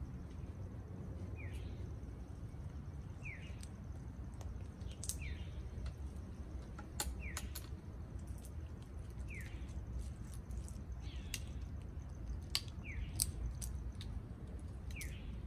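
Amazon parrots cracking pistachio shells with their beaks: sharp irregular cracks, over a short bird chirp repeated about every two seconds and a steady low background rumble.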